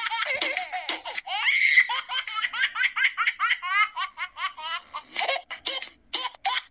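A toddler laughing hard: high-pitched giggles with a longer squeal about a second in, then quick, rhythmic bursts of laughter several times a second.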